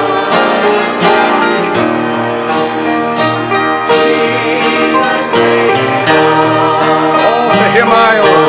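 A church hymn being played and sung: instruments holding steady notes, with voices singing along.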